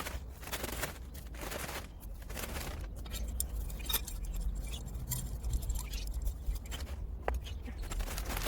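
A string of irregular scrapes and rustles, each about half a second long, from wet bagged compost being worked into a garden bed.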